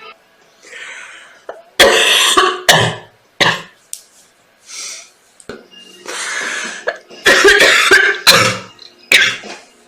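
A girl coughing while ill: three quick coughs close together about two seconds in, then after a pause a longer bout of several coughs.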